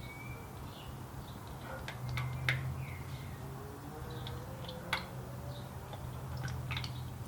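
New motor oil poured through a funnel into a 1997 Mitsubishi Mirage's engine filler neck while topping up after an oil change. It is a steady low pour with a faint tone that slowly rises in the middle, and a few light clicks.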